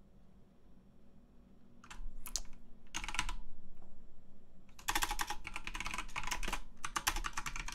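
Typing on a computer keyboard: a few short bursts of keystrokes starting about two seconds in, then a fast, steady run of keystrokes over the last few seconds. A faint steady hum lies underneath.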